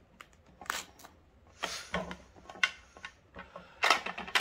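Small kitchen knife cutting through thick pomelo rind, with rind slices and the knife knocking on a plastic plate, in a few short scraping and clattering bursts.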